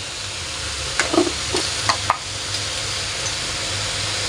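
Stir-fry of garlic, sausage and vegetables sizzling steadily in a pan, with a few light clicks of a spatula against the pan between about one and two seconds in.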